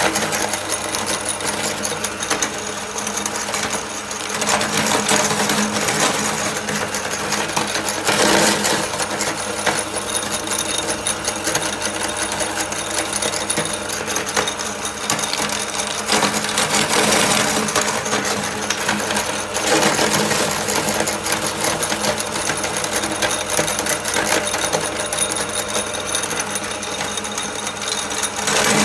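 Hand-cranked aluminium meat grinder crushing small hard cookies into crumbs: continuous crunching and crackling that swells and eases every few seconds.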